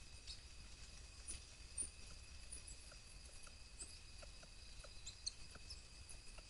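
Faint scattered clicks and rustles of South American coatis foraging in dry leaf litter, over a steady, faint, high-pitched hum.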